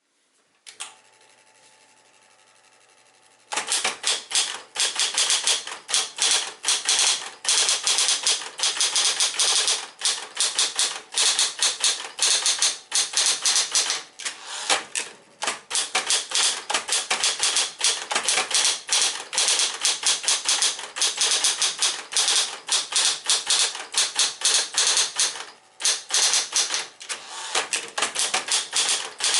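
Smith-Corona Coronet Electric 12 electric typewriter: a click, then its motor humming alone for a few seconds, then quick, steady typing with rapid keystrikes and short pauses.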